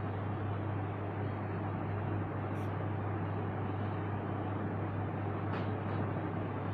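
A steady low hum over a constant hiss, with a few faint clicks as rice is mixed by hand on a steel plate and eaten with the fingers.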